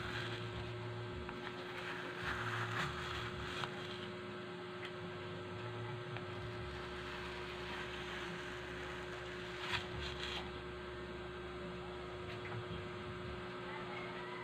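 A steady hum throughout, with faint scraping as a stainless-steel ice cream scoop is dragged through firm frozen homemade ice cream in a plastic tub. There is a short knock or two about ten seconds in.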